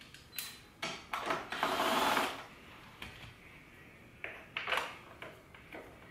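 Hands-on work noises from refitting a car's center console: a scatter of sharp clicks and knocks, and about a second of scraping rustle near the two-second mark.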